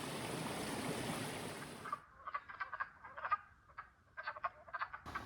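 A steady rushing noise, then, about two seconds in, frogs calling: many short croaks in quick irregular clusters over a quiet background.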